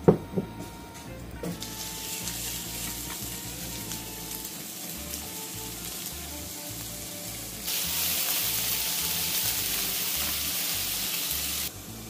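Diced onions sizzling in hot oil in a frying pan; the sizzle grows louder about two-thirds of the way through and cuts off suddenly just before the end. A couple of sharp knocks at the very start, over light background music.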